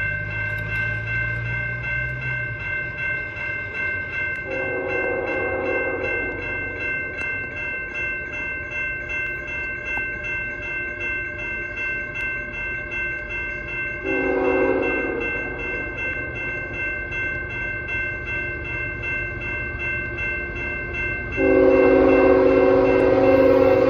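Grade-crossing bells ringing steadily while the horn of an approaching CN GE ET44AC locomotive sounds: a long blast, a short one about ten seconds later, then a louder long blast near the end as the train nears. The blasts are part of the standard long-long-short-long horn signal for a level crossing.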